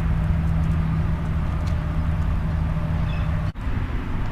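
A steady, low engine hum over a rushing outdoor noise; the hum's tone stops abruptly about three and a half seconds in, leaving only the rushing noise.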